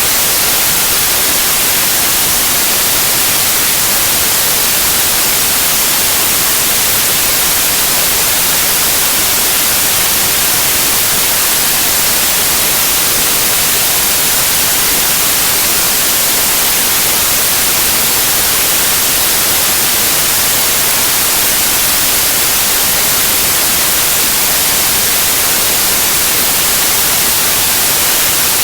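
Steady white noise: an even, unchanging hiss with its strongest energy in the high end.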